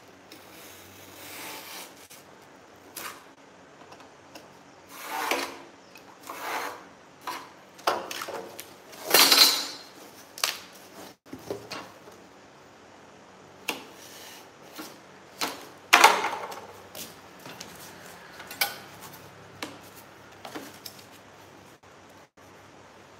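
Cardboard sheets being handled, slid and scraped against each other and the floor, with a few sharp knocks of a metal square, in irregular bursts about a second long. The loudest scrapes come about nine seconds in and again around sixteen seconds in.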